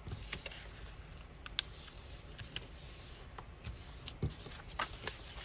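Decorative paper sheets being handled and folded by hand: faint rustling with scattered light ticks and taps.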